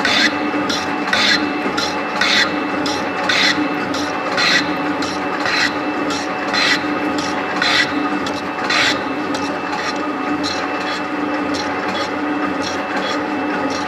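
7305T metal-shaping machine running: a steady motor hum under a rasping scrape of the cutting tool through metal, repeating about once a second with each stroke of the ram. After about nine seconds the scraping strokes turn lighter.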